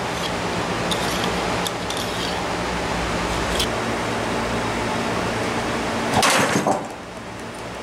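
Steady mechanical hum with a few faint clicks, then a brief louder clatter about six seconds in, after which the hum stops.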